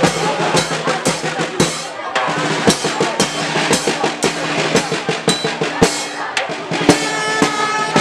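Marching brass band playing: a quick drum beat of bass and snare drums under held low notes from a sousaphone, with trumpets coming in louder near the end.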